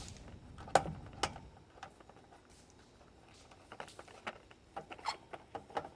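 Sharp small clicks and taps of parts being handled and pressed together while a sealing part is fitted: two louder clicks in the first second and a half, then a run of lighter ticks near the end.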